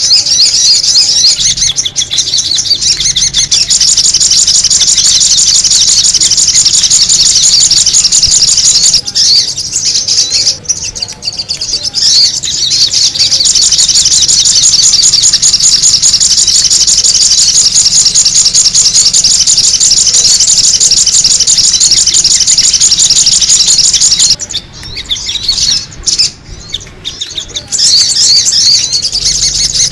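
A sogon bird's loud, busy song, used as a bird lure: rapid, high chirping chatter that goes on almost without a break, easing off briefly about ten seconds in and again near the end.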